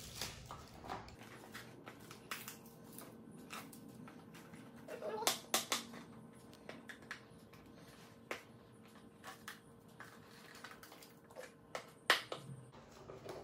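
Fingers picking and tapping at a small cardboard box to open its end flap: scattered light clicks and scratches, with louder handling noises about five seconds in and again near the end. A faint steady hum sits underneath.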